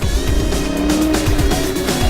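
Music mixed with a car engine running and rising and falling in pitch, with tyre noise.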